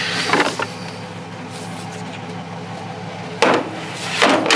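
Skis and aluminium ski poles knocking against a pickup truck's bed as they are loaded in, with two sharp clatters near the end, over a steady low hum.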